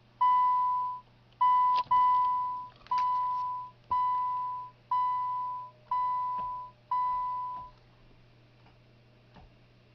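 2011 Subaru Legacy dashboard warning chime beeping with the ignition switched on: a single-pitched beep repeating about once a second, eight times, then stopping about eight seconds in.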